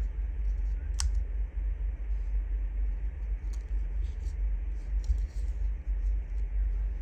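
A steady low hum, with faint light taps and rustles of paper as a small paper label is placed and pressed down onto a folded mini paper envelope. There is one sharp tick about a second in.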